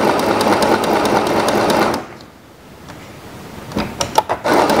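Mini portable 505 electric sewing machine running at speed, stitching through cloth with a fast, even ticking hum. It stops about two seconds in, a few sharp clicks follow, and it starts sewing again near the end. It is set to zigzag pattern 5 but sews only a straight stitch, a fault the owner can't place.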